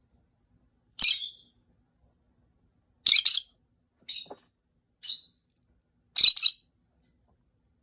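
Rosy-faced lovebirds giving shrill contact calls back and forth: a sharp call about a second in, a double call around three seconds, two fainter single calls, then another loud double call near the end.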